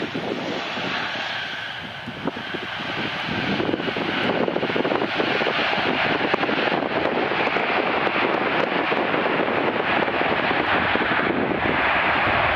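Twin jet engines of a UPS Boeing 767 freighter during touchdown and rollout on the runway. They grow louder about three seconds in, then run steady and loud.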